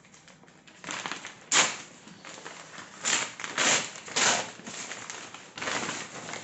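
Brown paper courier bag being pulled open and crumpled by hand: a run of separate rustling, crinkling bursts, the sharpest about a second and a half in.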